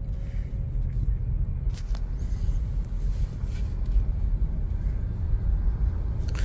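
Skoda car heard from inside the cabin, pulling away gently: a steady low engine and road rumble that grows slightly louder. The throttle is held back by a throttle controller in learner mode, so the car picks up speed slowly.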